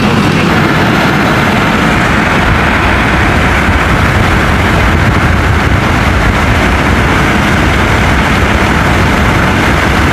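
Steady rush of wind and road noise inside a moving Fiat Uno car at highway speed, with the engine running under it.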